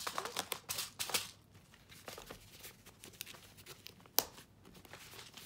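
Crinkling and rustling of packaging with scattered sharp clicks as small craft supplies are handled, busiest in the first second and a half, with one sharp click about four seconds in.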